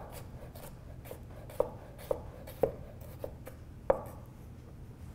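Chef's knife slicing carrot into julienne strips on a wooden butcher-block cutting board. Each stroke ends in a short knock of the blade on the board, five clear knocks spaced about half a second apart, the last about four seconds in, with fainter taps between.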